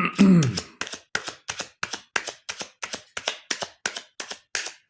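A brief hum of a voice, falling in pitch, then sharp, evenly spaced taps or clicks, about three a second.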